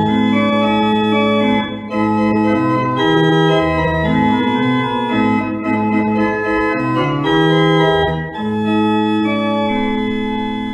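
Organ music: slow, held chords that change every second or so.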